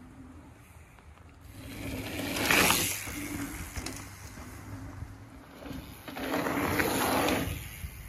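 Mountain bike riding past twice on a loose dirt and gravel trail, about two and a half and seven seconds in: the knobby tyres crunch over the dirt and the rear hub ratchets while coasting, each pass swelling up and then fading.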